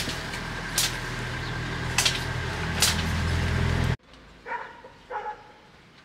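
A steady low mechanical hum with three sharp clicks, cutting off suddenly about four seconds in. Then a dog barks twice, shortly.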